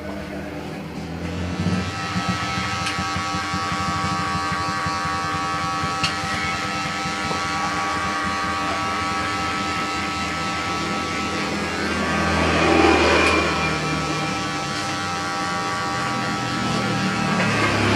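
Cordless electric hair clipper buzzing steadily as it cuts short hair around the ear, coming in a second or two in and swelling louder twice, mid-way through and near the end.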